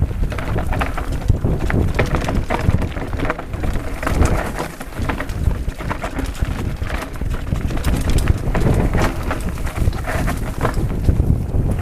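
Mountain bike clattering down a rocky forest singletrack: irregular knocks and rattles from the tyres, frame and chain over stones and dry leaves, with wind rumbling on the microphone.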